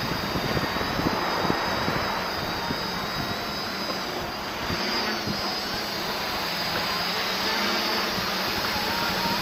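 Quadcopter's electric motors and propellers running as it hovers, a steady high-pitched whine and hum whose pitch wavers briefly about halfway through.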